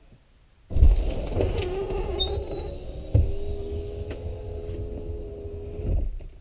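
Third-generation Toyota 4Runner's electric rear tailgate window rolling down, its motor starting suddenly and running with a steady hum for about five seconds before stopping, with one knock about halfway.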